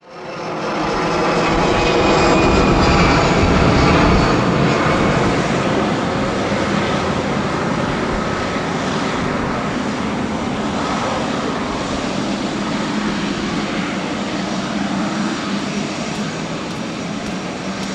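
Boeing 777-300ER's twin GE90-115B turbofans running at taxi power as the airliner taxis and turns onto the runway: a steady jet drone with a high fan whine, loudest in the first few seconds.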